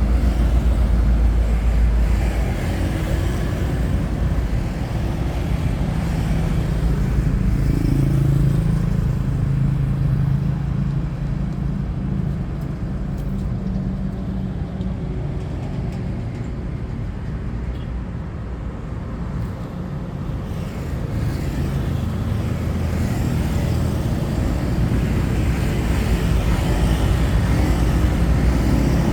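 Road traffic passing by: a steady low rumble of vehicles that is loudest at the start, eases off in the middle and builds again near the end.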